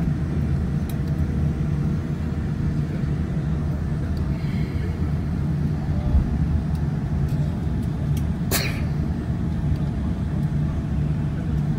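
Cabin noise of a Boeing 787-9 taxiing on the ground, its Rolls-Royce Trent 1000 engines at idle giving a steady low rumble and hum. A short, sharp click or rustle sounds about two-thirds of the way through.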